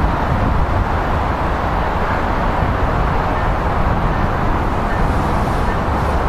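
Steady, even rumble and hiss of outdoor traffic noise with no distinct events.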